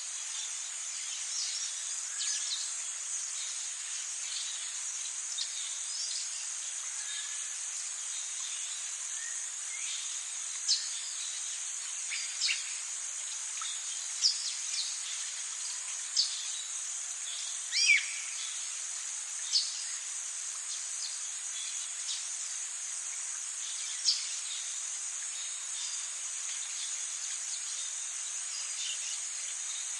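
Forest ambience: a steady, high-pitched drone of insects, with short, sharp bird calls scattered every second or two over it, the loudest about two-thirds of the way through.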